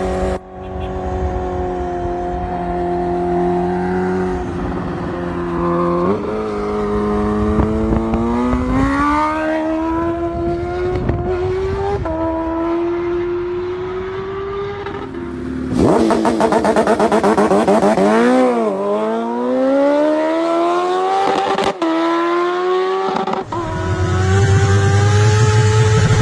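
A high-revving engine accelerating hard through the gears, its pitch climbing and dropping back at each shift. This happens several times, with a steadier engine note near the end.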